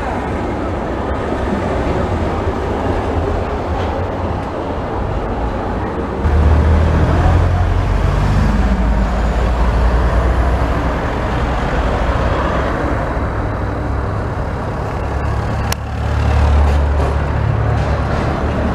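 Electric trams running along a city street among car traffic: a steady low rumble of the tram and passing cars, which steps up sharply about six seconds in and stays loud as a tram draws near.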